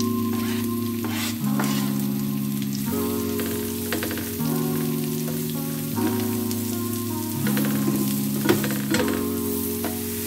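Sliced button mushrooms sizzling in melted butter in a nonstick frying pan on high heat, with a spatula stirring and scraping them in scattered clicks. Soft background music with slow chord changes runs underneath.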